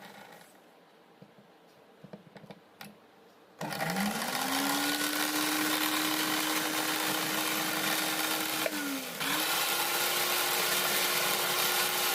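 Repaired juicer blender's brushed motor test-running: a few light clicks, then about three and a half seconds in it starts and quickly spins up to a steady running pitch. Near the two-thirds point it briefly slows and drops out, then starts again and runs steadily.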